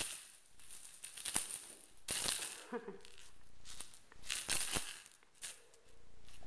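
Cat wand toy with a feathered ball rattling and swishing as kittens bat and grab at it, in irregular short bursts.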